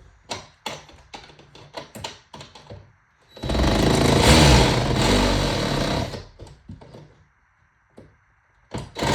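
Clicks and knocks of parts being handled, then a small motor running for about three seconds and starting again near the end.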